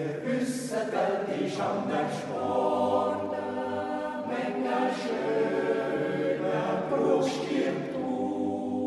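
Swiss mixed yodel choir, men's and women's voices, singing a cappella in harmony, coming in together right at the start.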